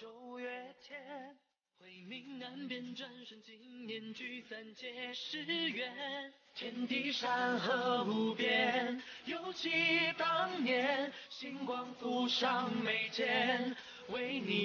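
Outro song: a singing voice with wavering pitch over musical accompaniment. The sound cuts out briefly about a second and a half in, and from about six and a half seconds in the music grows fuller and louder.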